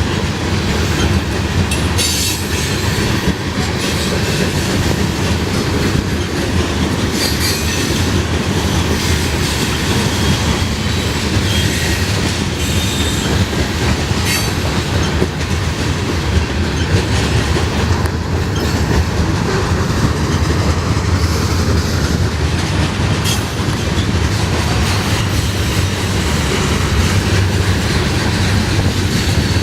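Cars of a mixed freight train rolling past close by: a steady rumble of steel wheels on the rails, with sharp clicks here and there as wheels cross rail joints.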